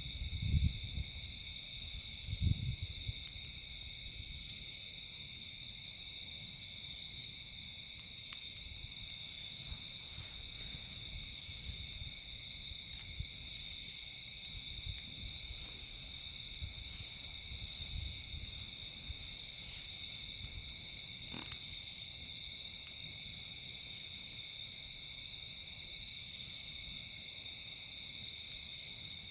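Steady high chorus of night insects such as crickets, with a few sparse pops from a crackling campfire. A couple of low thumps come in the first few seconds.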